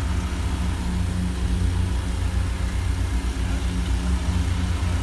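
Engine of the demolition machinery running steadily with an even low hum.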